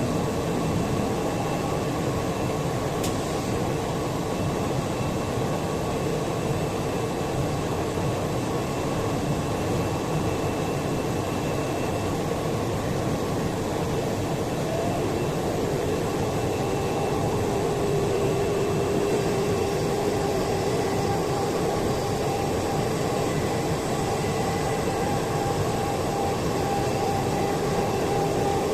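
Woodworking CNC router running steadily: a constant mechanical noise with a spindle whine whose pitch drops slightly a little past halfway through.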